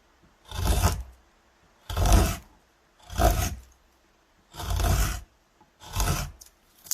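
A hand tool scraping across wood in repeated strokes: about six rasping strokes, each roughly half a second long, a little over a second apart with quiet between.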